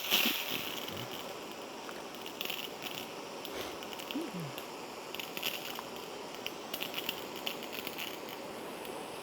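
Water hissing and sputtering out of a pressure washer gun with the motors off, with irregular crackles as air is bled out of the supply line.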